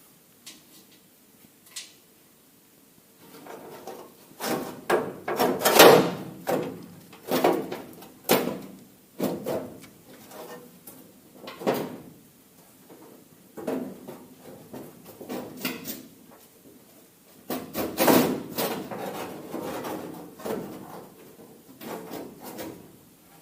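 Irregular scraping, rattling and clanking of the side door window winder mechanism being worked loose and pulled out of the door. It starts with a few light clicks, and the loudest scrapes come about five to eight seconds in and again near eighteen seconds.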